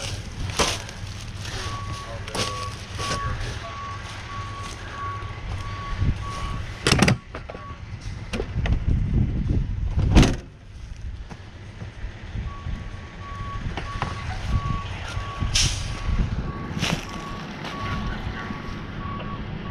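A tow truck's backup alarm beeps about twice a second over a low engine rumble. It stops for a few seconds in the middle, then starts again. A couple of sharp knocks stand out near the middle.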